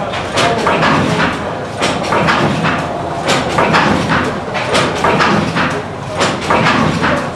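1903 De La Vergne 125-horsepower oil engine, an early forerunner of the diesel with nine-foot flywheels, running: a busy mechanical clatter of sharp knocks and clicks, several a second.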